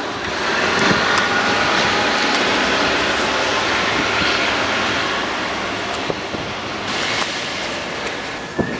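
A train passing close by: a steady rush of wheel and air noise with a few sharp knocks, easing off slightly towards the end.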